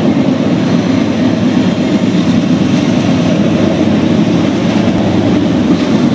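Loud, steady rumble of a diesel freight locomotive passing close below as it runs into a rail tunnel.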